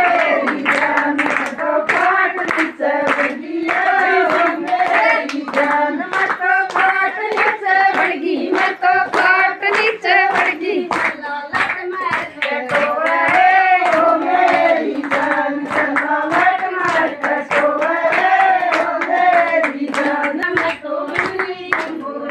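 A group of women singing a song together, with hand-clapping keeping a steady beat throughout.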